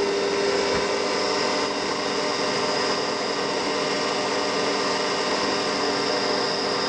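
CNC milling machine running steadily, its spindle motor giving a constant whine as the end mill cuts the inlet port of a model diesel engine.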